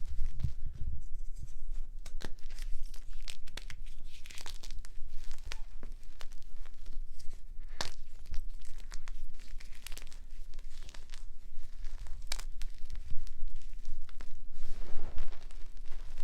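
Gym chalk blocks crunching and crumbling under pressure: a continuous crackle of many sharp snaps over a low handling rumble.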